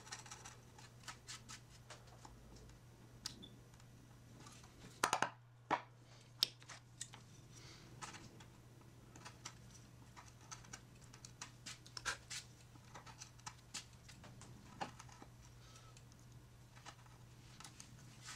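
Hand chisel paring into stained poplar: faint, scattered scraping and clicking of the blade against the wood, with a few sharper clicks about a third of the way in, over a steady low hum.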